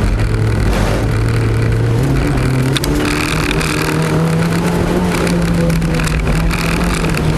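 Honda Fit GD3's 1.5-litre four-cylinder engine heard from inside the cabin while driven, holding a steady engine speed that steps up about two seconds in, over steady road and tyre noise.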